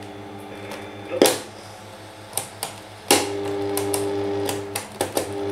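Sharp clicks of the piano-key buttons on a vintage portable radio being pressed, over a steady electrical hum from the set. The hum starts with one click and breaks off briefly between two clicks near the end.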